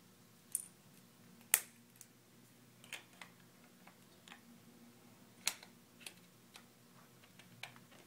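Irregular small plastic clicks and taps from a 3M no-polish LC fiber connector and its insertion tool being handled and fitted together on a tabletop, with sharper clicks about a second and a half in and again about five and a half seconds in.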